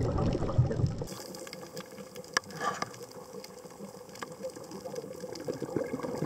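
A low rumble for about a second that cuts off, then water bubbling and crackling with scattered clicks, one sharper click about two and a half seconds in.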